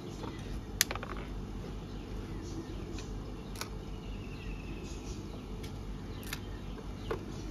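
A few scattered light clicks and taps of small screws and plastic toy-vehicle parts being handled and set in place, the sharpest about a second in, over a low steady hum.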